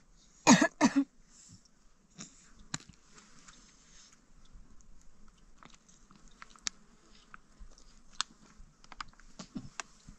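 A toddler eating crunchy snacks fed from a foil packet: scattered crunches and crackles of the packet. A short two-part voice sound about half a second in is the loudest thing.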